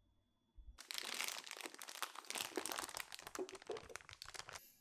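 Thin plastic of a disposable piping bag crinkling as the batter-filled bag is handled and lifted from the cup it stood in: a dense run of crackles that starts about a second in and stops just before the end.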